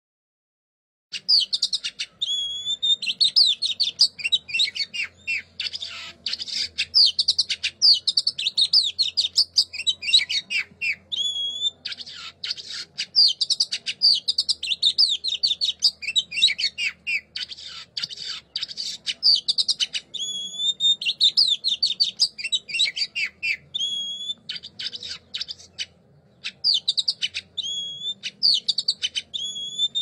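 A songbird singing a fast, varied song of chirps, trills and clear whistles in long phrases with brief pauses, starting after about a second of silence.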